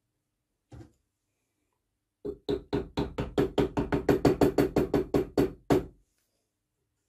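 Brass-faced hammer tapping on a steel lathe slide that holds a new brass spindle nut: one light knock about a second in, then a quick, even run of about twenty taps, roughly six a second, for about three and a half seconds.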